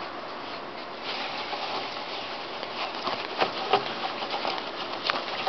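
A dog tugging and chewing at the fluffy mane of a toy horse: rustling and mouthing noises with a few sharp clicks and knocks, the loudest about three and a half seconds in and one near the end, over a steady outdoor hiss.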